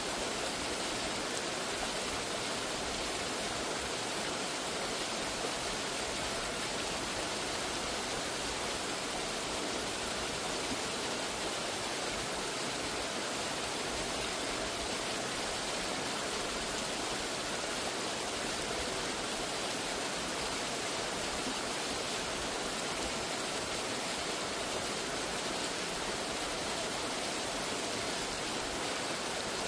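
Waterfall, water rushing and splashing in a steady, unbroken roar.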